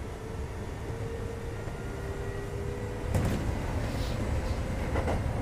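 Interior running sound of a Kintetsu 2430-series electric train: a steady rumble with a faint whine. About three seconds in it grows louder, with wheel knocks from rail joints or points, and another knock near the end.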